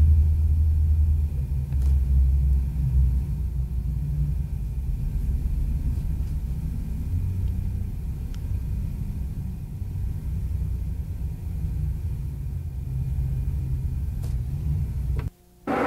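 A low, uneven rumble that cuts out for a moment near the end.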